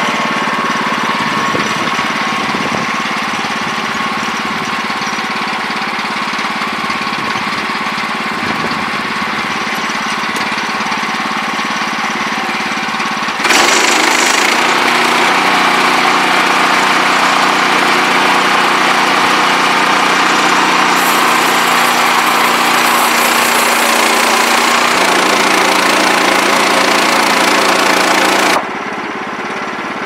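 Engine of a portable bandsaw sawmill running with the band blade cutting lengthwise through a log. About halfway through it suddenly gets louder and brighter, and near the end it drops abruptly to a quieter, steady run as the cut finishes and the throttle comes back toward idle.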